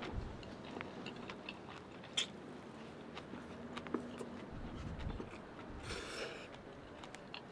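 Close-up mouth sounds of eating noodles: chewing and slurping, with a scatter of small sharp clicks and a short slurp about six seconds in.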